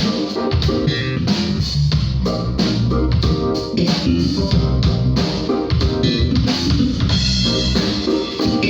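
Live band playing a groove during a sound check: guitar and bass guitar over a drum kit.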